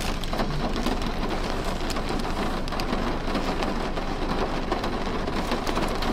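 Rain falling steadily on the car's roof and windows, heard from inside the cabin as a constant hiss with many small ticks.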